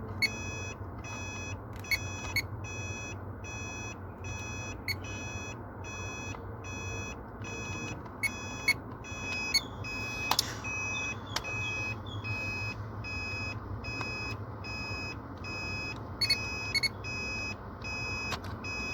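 Power Probe circuit tester beeping, again and again, as its tip is touched to one fuse after another. Each beep is a steady high tone of uneven length, with small clicks as the tip meets the metal. Each beep signals power present at the fuse: the fuses are good.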